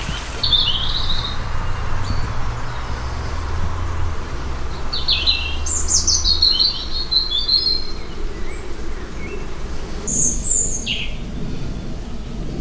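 Songbirds singing in spring woodland: a short high phrase about half a second in, a longer falling trill around the middle, and a few very high notes near the end. A low steady rumble sits under the first half.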